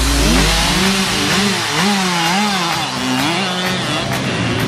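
Mini dirt bike engine revving up and down as it is ridden, its pitch rising and falling every half second or so.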